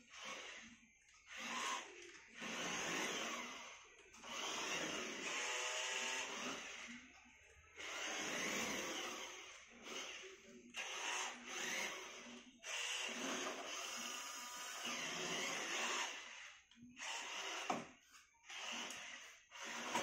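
Toy remote-control car's small electric drive motor whirring in repeated bursts of one to four seconds as it is driven and stopped. In a couple of the runs the whine rises as the car speeds up.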